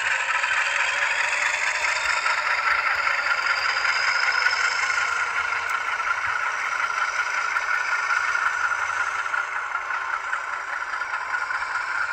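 HO-scale Rapido GE U25B model diesel locomotive running with its sound decoder on, its wheels and those of the flat cars behind it rattling along the track. A thin whine rises over the first few seconds.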